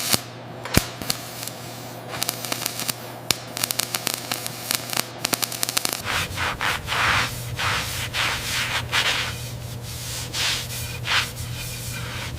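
Scattered scrapes and sharp clicks of hand tool work. About halfway through, a low hum sets in under repeated abrasive rubbing strokes, about one or two a second, as in sanding.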